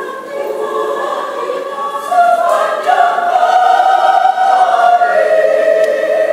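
Women's church choir singing held chords in several parts, swelling louder about two seconds in.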